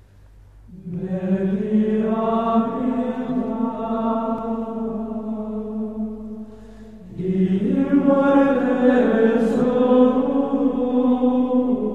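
Chanted vocal music: voices sing long held notes in two phrases, with a short break about six and a half seconds in.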